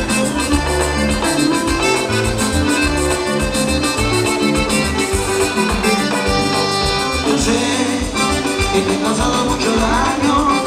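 Latin dance band playing an instrumental passage over a steady pulsing bass line, with no singing.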